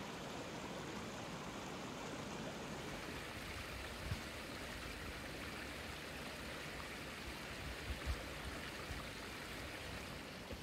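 Small creek flowing over logs and rocks between snowy banks, a steady rushing of water. There are a few soft low thumps about four and eight seconds in.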